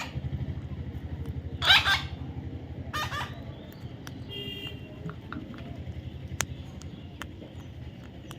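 A young parrot giving three harsh squawks, the loudest about two seconds in, over a steady low hum.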